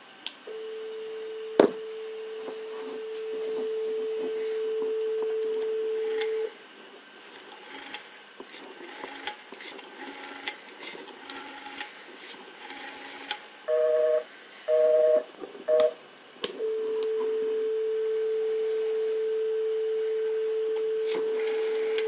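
Rotary dial telephone with a steady dial tone in the earpiece, broken by a sharp click about a second and a half in. The tone then stops while the dial is turned and clicks back for each digit. Three short two-pitch beeps follow, then the dial tone returns and holds.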